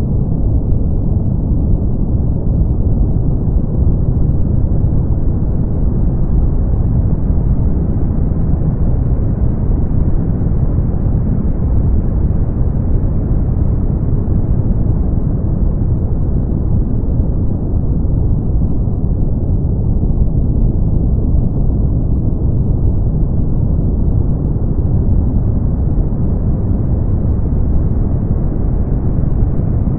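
Brown noise: a steady, deep hiss weighted toward the low end, with no treble. Its brightness slowly rises and falls over many seconds.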